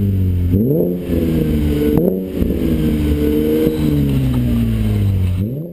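Chevrolet Camaro V6 through an ARK Performance DT-S aftermarket exhaust, revved in quick throttle blips. Three times the pitch jumps up and then slides slowly back down toward idle.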